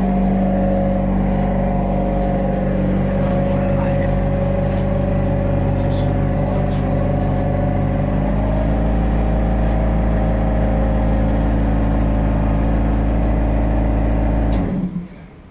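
Vintage tram heard from inside its saloon: a loud, steady mechanical hum over a low rumble, its pitch stepping slightly about halfway through, that cuts off suddenly about a second before the end.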